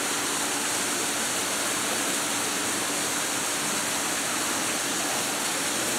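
Small decorative waterfall in a display, water falling and splashing in a steady, even rush.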